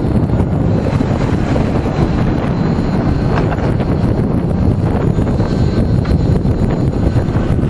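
Wind buffeting the microphone of a camera riding on a moving electric bike: a loud, steady, deep rushing noise with no break.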